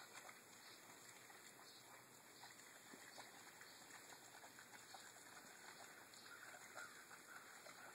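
Near silence: faint outdoor ambience with a few faint ticks.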